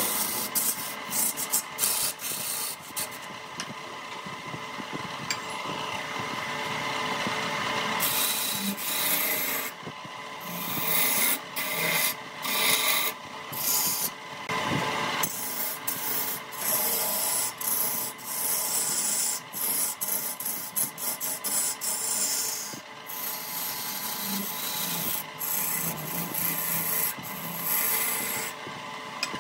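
Wood lathe running with a steady hum while a tool is worked against the spinning wood, giving irregular stretches of scratchy noise.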